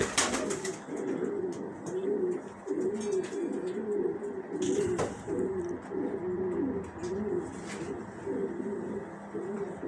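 Male Gorguero pouter pigeon cooing in a long run of short, rolling coos, one after another: the courtship call he gives when seeking a female. A brief clatter of wing flaps at the start.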